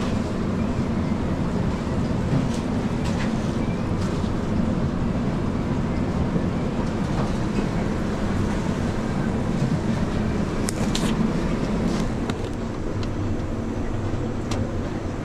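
Steady low rumble of kitchen ventilation machinery, with several light clicks in the second half.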